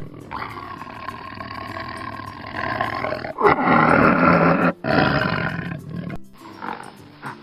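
A big cat roaring: three long, rough roars in a row, over background music. Near the end the roars stop and short, rhythmic pulses of panting begin, about three a second.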